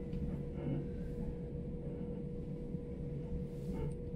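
Inside a moving electric commuter train: the steady rumble of the wheels on the track, with a constant hum.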